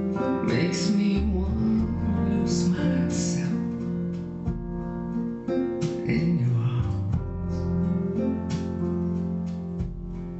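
A recorded song led by acoustic guitar, with a singing voice, played back through a Wharfedale Linton Heritage loudspeaker and heard in the room.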